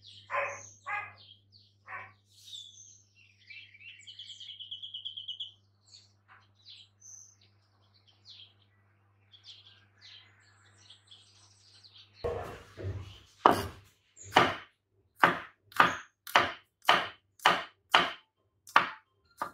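Birds chirping, with a fast trill about four seconds in. From about twelve seconds in, a cleaver slices garlic cloves on a wooden cutting board: sharp knocks about two a second.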